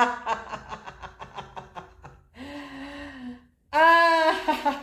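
A woman laughing on the vowel 'A' as a breathing exercise. A quick run of 'ha-ha-ha' pulses is followed by a breathy 'ahh' on the out-breath. After that comes a loud held 'aaah' that breaks back into fading laughter near the end.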